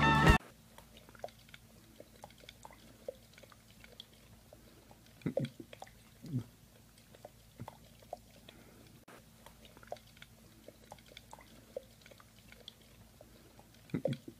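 Husky licking and lapping inside a drinking glass: quiet wet mouth clicks and smacks, with louder slurps about five and six seconds in and again near the end.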